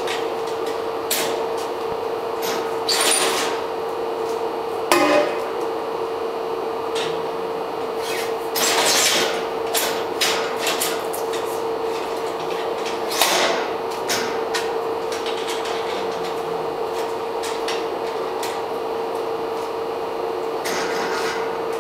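Scattered metal knocks and clicks, with a few short scrapes, from a manual screen-printing press as its screen frame is unclamped and lifted out. A steady hum sounds underneath throughout.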